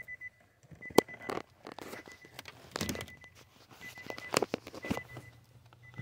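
Handling noise from working at a car's wiring under the dash: scattered clicks and knocks of a test light probe and plastic connectors, with rustling between them. A faint high-pitched tone comes and goes in the background.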